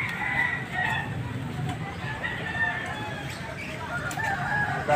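Several caged roosters crowing, their long calls overlapping, with chickens clucking among them.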